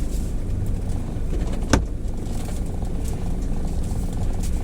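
Car engine running at low speed while the car is being manoeuvred into a parking space, with one sharp click about a second and a half in.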